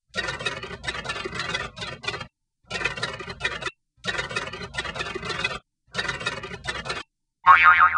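Typewriter-key clacking sound effect in four quick runs with short pauses between them. Near the end, a cartoon boing sound effect starts.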